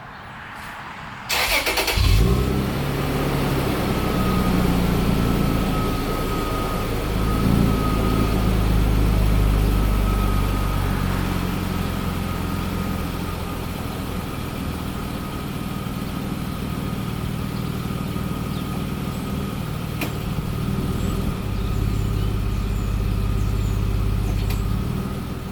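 2009 Toyota Tacoma's engine cranked over and catching about two seconds in, then idling steadily, swelling slightly a couple of times, with a faint steady high whine over it.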